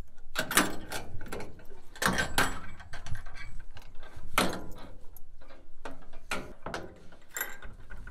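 Metal hook-and-eye latch unhooked and a corrugated sheet-metal shed door on a wooden frame pulled open, with about seven sharp knocks and rattles.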